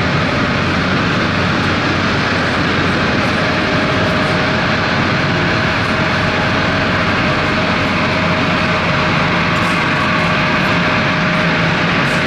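Airliner engines running loud and steady, a dense roar with a steady whine through it that neither rises nor falls.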